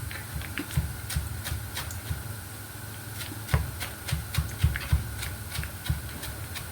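Kitchen knife knocking on a cutting board as parsley and mint are chopped: irregular taps, some sharper and heavier than others.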